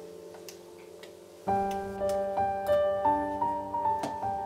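Solo piano background music, slow and gentle: a held chord dies away, then a new phrase of notes starts about a second and a half in.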